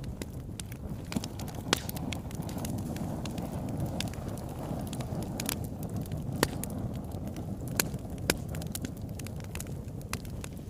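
Wood fire burning in a fireplace: a steady low rumble of the flames with frequent sharp crackles and pops, a few of them much louder.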